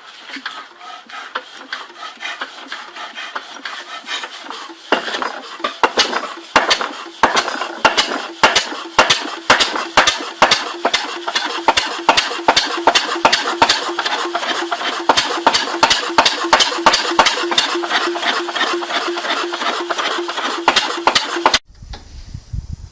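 8 HP diesel engine running with a rhythmic metallic clatter of sharp knocks, growing louder and faster about five seconds in over a steady hum. It cuts off abruptly near the end.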